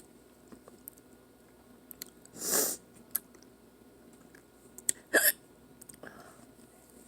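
A person hiccuping twice, about two and a half seconds in and again about five seconds in, the second sharper. The hiccups are brought on by eating spicy chips.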